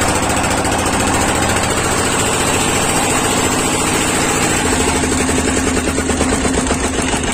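Motorboat engine running with a fast, even chugging. A steady hum joins about five seconds in.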